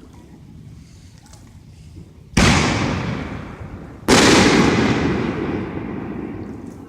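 Two aerial fireworks shells bursting, the first about two and a half seconds in and the second under two seconds later, each bang trailing off in a long rumbling echo.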